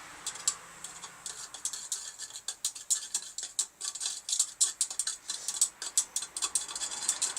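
Rapid, irregular crackling snaps from a high-current battery circuit sparking and fizzing in salt water, the crackles growing denser after about a second.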